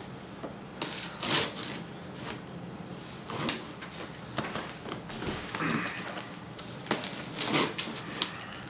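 Packing tape on a cardboard box being cut open, heard as a series of short, scratchy scrapes at uneven intervals.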